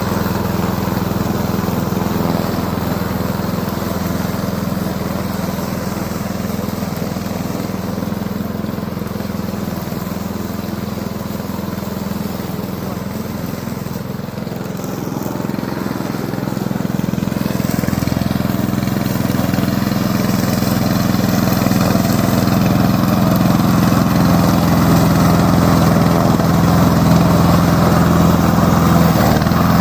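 Petrol engine of a remote-controlled lawn mower, a Loncin engine, running steadily. It grows louder from about halfway through.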